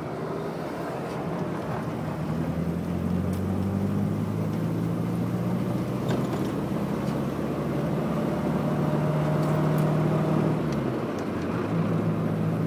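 1965 Morris Minor's four-cylinder engine running steadily while driving, with road and tyre noise. The engine note dips briefly about eleven seconds in, then picks up again.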